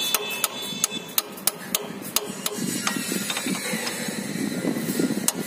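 Metal clicking, about three clicks a second, as a 17 mm socket wrench is worked on a Honda Wave Alpha's oil drain bolt. A low rubbing noise joins between about two and five seconds in.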